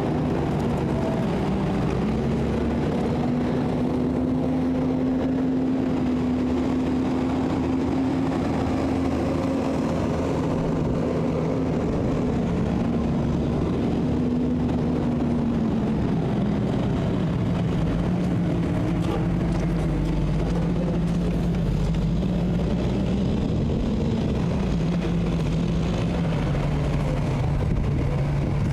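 An engine running steadily, its pitch dropping somewhat about halfway through.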